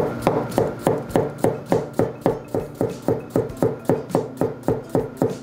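Chef's knife slicing a carrot on a plastic cutting board: a steady run of knocks as the blade hits the board, about four a second.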